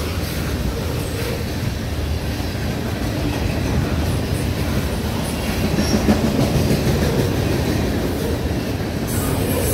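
Long freight train rolling past: a steady rumble and clatter of wagon wheels on the rails as tank cars, boxcars and loaded flatcars go by, a little louder about six seconds in.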